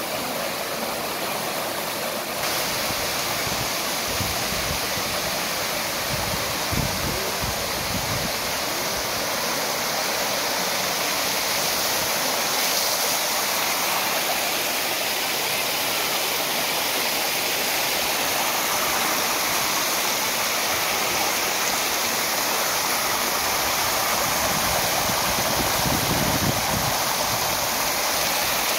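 Water rushing and splashing as it cascades over white travertine spring terraces, a steady rush that grows a little louder about two seconds in.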